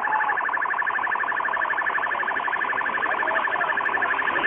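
A loud electronic alarm pulsing very rapidly at a steady pitch, many beeps a second without pause.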